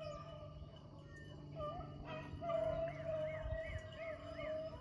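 A pack of rabbit-hunting beagles baying steadily on a rabbit's trail, overlapping drawn-out cries that waver in pitch. Four short high notes come over it about three seconds in.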